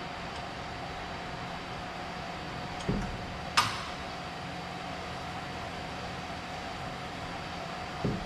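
Exhaust parts being fitted under a car, over a steady workshop hum: a dull knock about three seconds in, a sharp metal clink half a second later, and another dull knock near the end.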